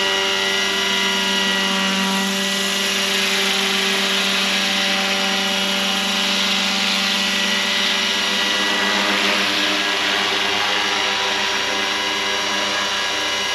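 Roban 600-size Hughes MD500 scale RC helicopter hovering with its rotor head at about 1500 RPM: a steady whine of rotors and drive made of several even tones.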